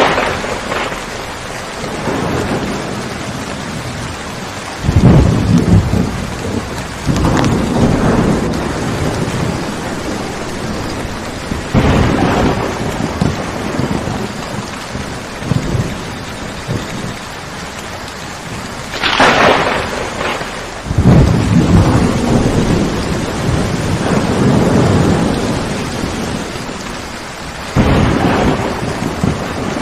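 Steady rain falling, with repeated claps and rolling rumbles of thunder. The sharpest crack comes about two-thirds of the way in and runs into a long rumble.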